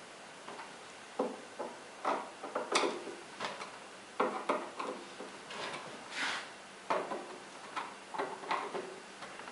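Screws being tightened into a chest freezer's metal lid hinges with a screwdriver: a run of irregular short clicks and scrapes.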